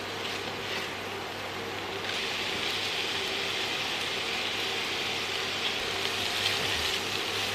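Chopped onion frying in olive oil in a nonstick pan: a steady sizzle that grows louder about two seconds in as more onion drops into the hot oil. A spatula stirs the onion near the end.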